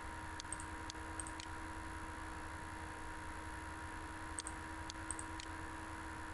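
A computer mouse clicking several times, in a cluster about half a second to a second and a half in and another around four and a half to five and a half seconds, over a steady hiss and low electrical hum.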